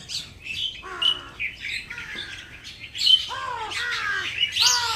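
Birds chirping and calling: many quick high chirps, with louder calls that fall in pitch about a second in and three times more from about three seconds in.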